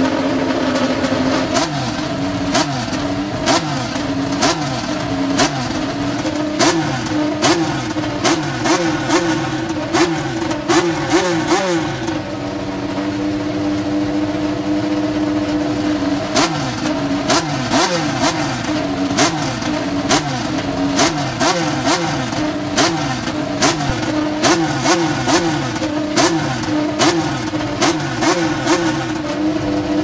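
McLaren MCL35 Formula 1 car's Renault 1.6-litre turbocharged V6 running during its first fire-up. It is revved in repeated short throttle blips, each rising and falling in pitch with sharp cracks, and holds a steadier idle for a few seconds around the middle.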